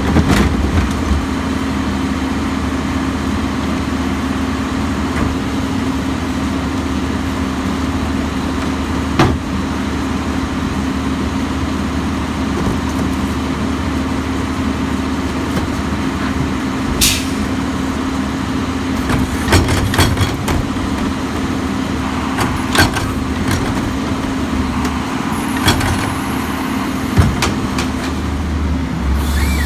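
Crane Carrier garbage truck's diesel engine running at a steady speed while the rear cart tippers of its Leach packer body lift and dump plastic carts. Sharp clanks of carts knocking against the tipper and hopper come several times, with a short hiss about halfway through.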